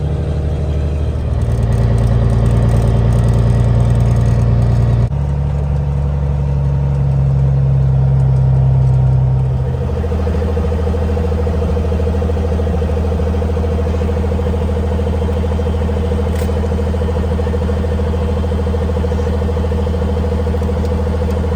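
Semi truck's diesel engine running, its speed stepping up and down a few times before settling into a steady idle about ten seconds in.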